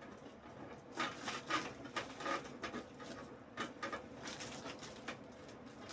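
Light, irregular crinkling and clicking of a wire twist tie being fiddled with on a PC case's cable bundle, not coming undone because only one half of it is being twisted.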